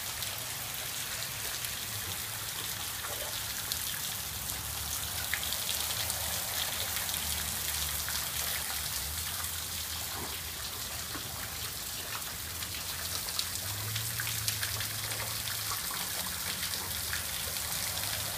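Rain falling steadily, with water overflowing from a rain gutter and dripping and splashing onto the wet ground: an even hiss dotted with many small drip ticks.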